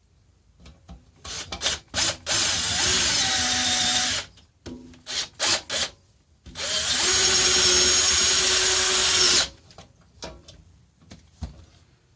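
Power drill driving bolts: a few short trigger blips, then a steady run of about two seconds, more short blips, and a longer run of about three seconds as a bolt is run in.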